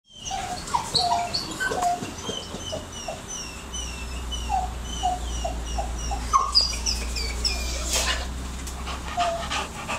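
American Pit Bull Terrier-type dog whining in a string of short, high-pitched notes, several a second, with a single knock near the end.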